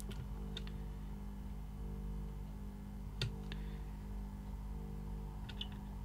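A few faint clicks and taps as the pins of a replacement IC are pushed into the holes of a circuit board, over a steady low hum.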